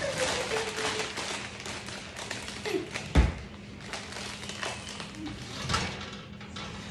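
Kitchen clatter: small taps and clicks, with a heavy thump about three seconds in and a lighter one a little before six seconds.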